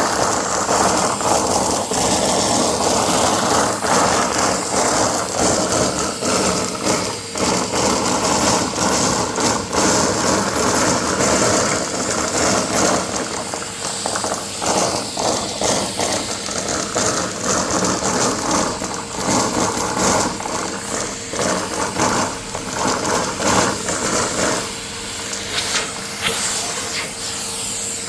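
Vacuum cleaner running steadily while sucking up white paper confetti, with many small ticks and rattles as the pieces are drawn in. About three seconds before the end the sound drops a little and a steady whine comes in.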